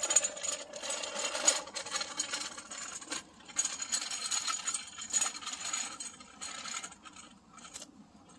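Child's bike rattling and clicking as it rolls slowly over a concrete sidewalk, the sound fading near the end.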